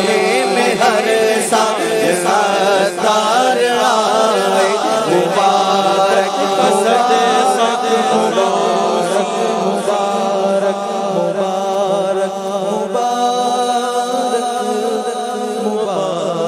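Male voices chanting a devotional Urdu naat, a slow melodic refrain sung without a break.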